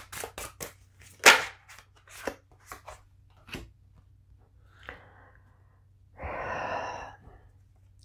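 A deck of oracle cards being shuffled by hand: a quick run of card slaps and clicks, one louder about a second and a half in, then a few scattered ticks. About six seconds in comes a rustle lasting about a second.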